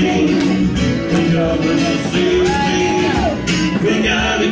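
Country-rock song playing: guitar and a steady drum beat.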